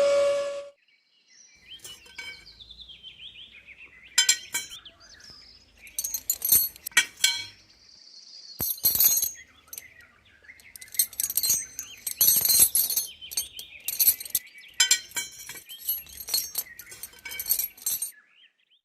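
A small motor's steady high whine cuts off about half a second in. It is followed by irregular clusters of light clinks and clicks, with a few faint chirp-like glides between them.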